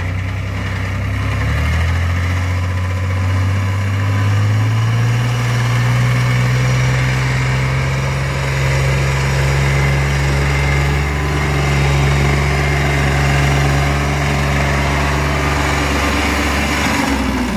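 Diesel engine of a New Holland tractor running under load as it hauls a loaded trolley of soil up a dirt ramp. The engine note climbs over the first few seconds, holds steady, and drops about a second before the end.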